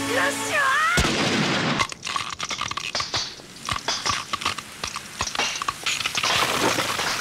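Cartoon fight sound effects: a short yell, then a heavy impact about a second in, followed by a long run of sharp cracking and crackling as hardened sand splits and crumbles.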